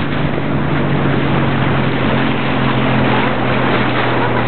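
Outboard motor of a Zodiac inflatable boat running at a steady pitch under way, over a constant rush of water and wind noise.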